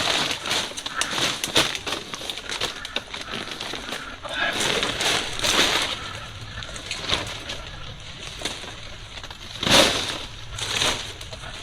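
Irregular close crunching and crackling clicks, with a louder burst about ten seconds in.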